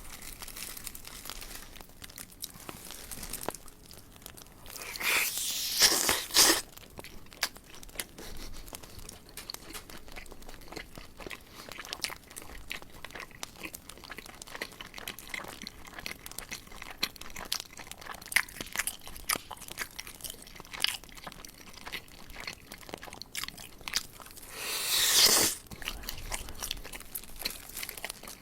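Close-miked eating of crispy fried chicken (a BHC Boombastic whole drumstick): steady chewing with fine crackly clicks, and two loud crunching bites into the fried crust, one about five seconds in and one near the end.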